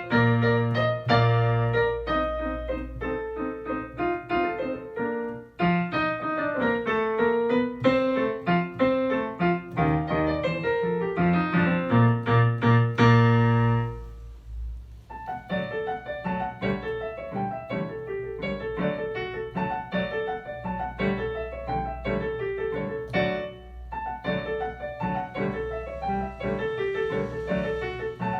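Solo piano playing a short classical dance piece, which ends about halfway through on a loud held chord that dies away; after a brief pause a new piano piece begins, lighter and quieter.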